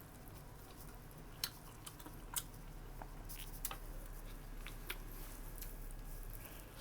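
A person chewing food with the mouth close to the microphone: soft wet chewing broken by sharp mouth clicks every second or so.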